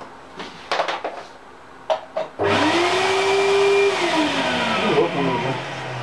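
A few light clicks, then a Makita wet/dry shop vacuum switches on about two and a half seconds in. Its motor spins up with a rising whine and runs loud and steady for about a second and a half, then winds down with a slowly falling whine.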